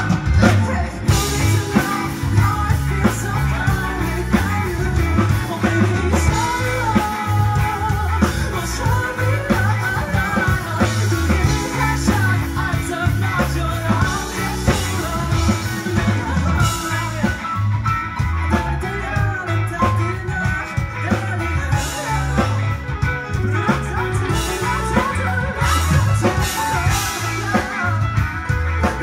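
Live band performing a rock-pop song: electric guitar, bass guitar, keyboards and drums, with a lead singer.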